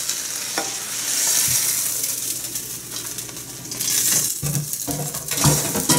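Oil sizzling in a hot frying pan of pan-fried gyoza as a plate is pressed over it and the dumplings are turned out, the hiss swelling twice. A few dull knocks of pan and plate come near the end.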